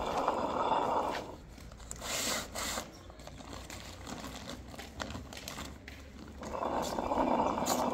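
Stone hand quern grinding wheat: the upper stone grating round on the lower one in a spell of about a second at the start and again near the end, with a shorter, hissier burst in between.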